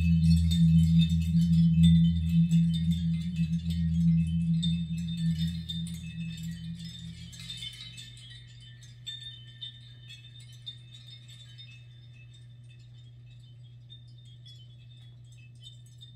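A music outro played over Dynaudio Contour 20 speakers: a low sustained chord with scattered chime-like high notes, fading away over about eight seconds and leaving a faint steady low hum.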